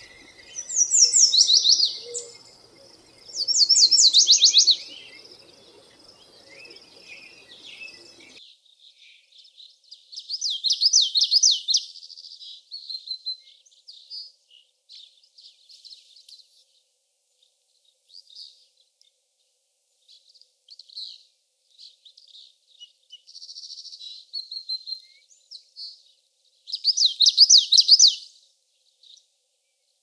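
A yellow warbler sings two quick songs of high notes that slide downward. After a cut about eight seconds in, a common yellowthroat sings several bursts of rapidly repeated phrases, the loudest near the end, with short chip notes scattered in between.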